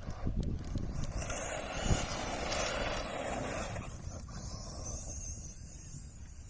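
Arrma Big Rock 6S RC monster truck running on a 4S battery, its brushless motor and drivetrain driving over the field: the noise swells about two seconds in and then fades as the truck moves away. Wind buffets the microphone throughout.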